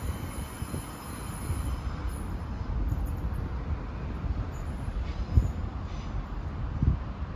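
Distant train on the curved track, with faint high wheel squeal that fades away within the first few seconds, over a low rumble and gusts of wind on the microphone.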